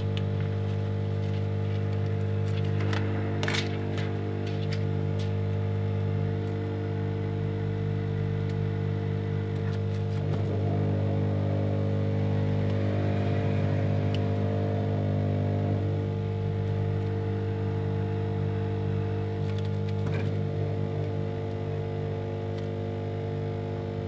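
Steady background music of sustained held tones, changing chord about ten seconds in and again near sixteen seconds. A few sharp crinkles of the plastic back skin being handled come about three seconds in.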